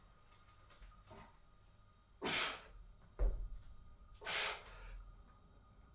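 A man breathing hard from the exertion of weighted dips: two forceful exhalations about two seconds apart. A dull low thud about three seconds in.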